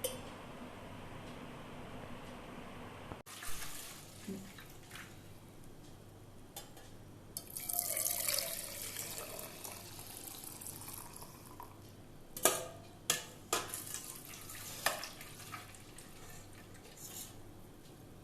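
Liquid running and splashing into a vessel for a couple of seconds, then a few sharp knocks of kitchen utensils.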